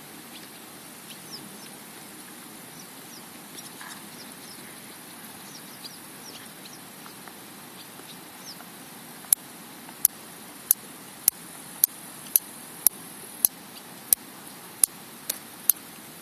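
Steady high-pitched insect buzzing, with a few faint short chirps early on. About halfway in, a series of sharp loud clicks begins, a little under two a second, and keeps going to the end.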